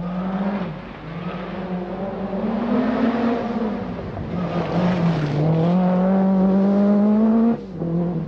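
Lancia Delta S4 Group B rally car's twin-charged four-cylinder engine under hard acceleration. Its note climbs, drops at a gear change about three and a half seconds in, and climbs again, then cuts off abruptly shortly before the end.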